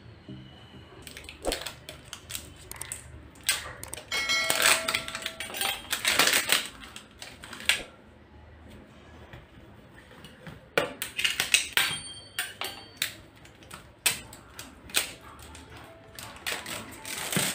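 Plastic epoxy resin and hardener containers being opened by hand: irregular clusters of clicks, crackles and scrapes as the tear-off seal bands are pulled away and the lids are twisted and prised off, with quieter pauses between.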